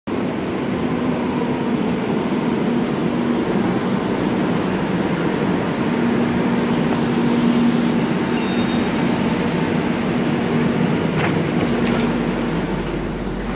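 Metro train pulling into an underground station: a steady, loud rumble with thin high wheel and brake squeals in the middle, as the train draws up at the platform. A few sharp clicks near the end.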